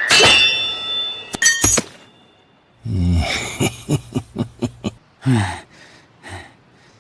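Anime fight sound effects: a metallic ring and clinks, then a quick run of sharp knocks and a short falling swish.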